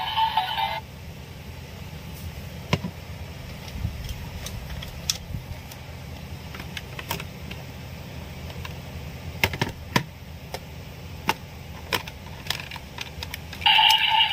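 Short, scattered plastic clicks and taps from handling a small plastic Vistamp toy, over a low steady hum. Music cuts off about a second in and comes back near the end.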